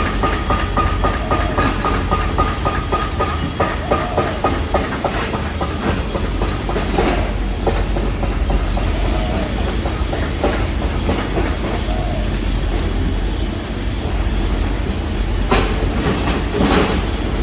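Construction-site machinery noise: a heavy, steady rumble with fast, even rattling and a steady whine over the first few seconds, then a few sharp knocks near the end.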